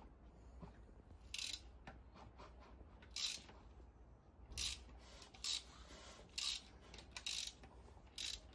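Light rasping of a BMW N47 four-cylinder diesel's piston rings scraping along the cylinder bores as the crankshaft is turned by hand, in short strokes roughly once a second. The engine has stood unrun for about a month and a half, so the bores have only external lubrication and no oil from the pump.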